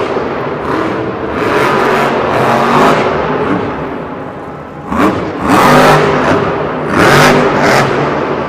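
Monster truck's supercharged V8 engine revving hard in repeated swells, with sharp surges about halfway through and again a couple of seconds later, echoing in the arena.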